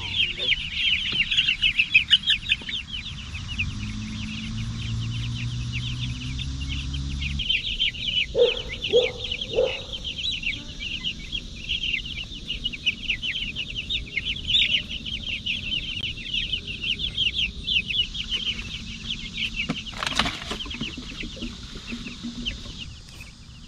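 A flock of young Cornish cross broiler chicks peeping all together, a dense, continuous chorus of high cheeps. Three short low knocks sound about eight to ten seconds in.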